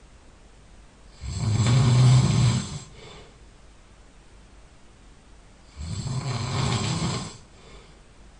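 A sleeping person snoring loudly: two long, low-pitched snores about four and a half seconds apart, the first louder than the second.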